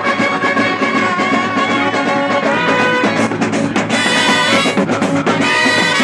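Street brass band playing: trumpets, clarinet and euphonium-type horns hold notes over bass drums and snare drums beating a busy rhythm. The horns break off briefly about four seconds in, then come back.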